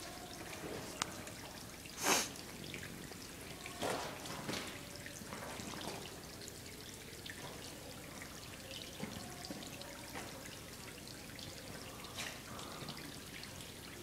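Thin waterfall trickling and dripping over rock, a faint steady splashing. A few short, louder noises break through about two seconds in and around four seconds.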